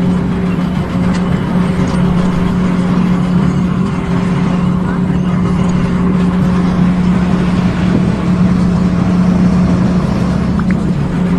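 An engine running at a steady speed, a constant low hum with no change in pitch.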